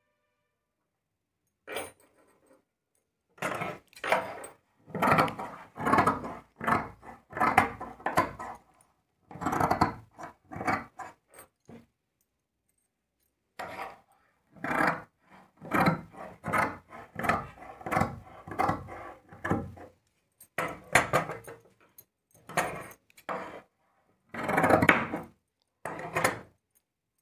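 Large tailoring shears cutting through layered blouse cloth and lining on a wooden table: runs of quick, crisp cuts, with a short pause about halfway through.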